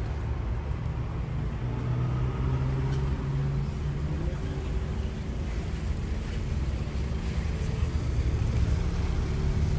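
Road traffic at a street-side spot: a steady low engine drone with noise from passing vehicles.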